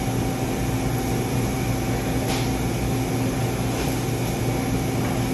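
Steady mechanical hum and air noise of commercial kitchen equipment, with a couple of faint ticks partway through.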